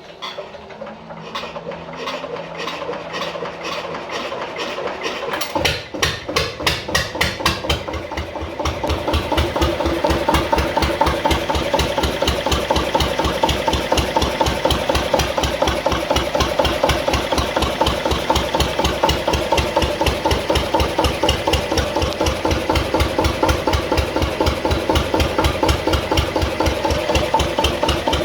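Bamford diesel generator engine being started: it turns over on the electric starter with the decompression lever open, its beat speeding up, then fires at about six seconds, picks up and settles into steady, even running with a knocking diesel beat.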